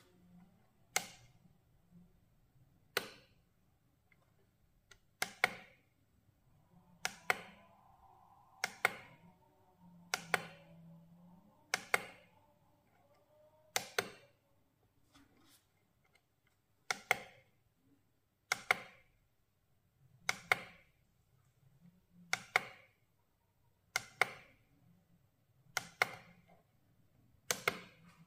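A run of sharp single clicks or taps, about one every two seconds, with a pause of about three seconds midway, over a faint low hum.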